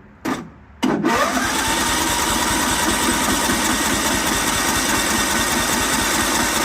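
John Deere mower engine being started: the starter cranks in a couple of short bursts, then about a second in the engine catches, its pitch rises quickly and it settles into a steady run on its newly fitted replacement carburetor.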